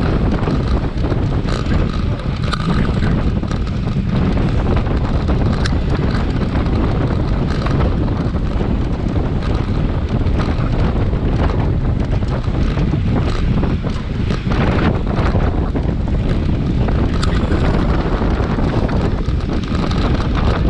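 Wind buffeting a GoPro's microphone: a steady, loud rumble of wind noise, with a few sharp clicks scattered through.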